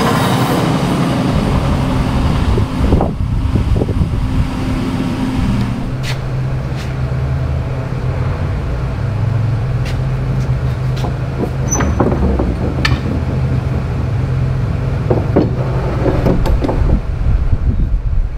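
Steady low machine hum, its pitch shifting about six seconds in, with a hiss that dies away about three seconds in. Scattered light clicks and taps from a bent stainless steel rod being handled against a wooden seat.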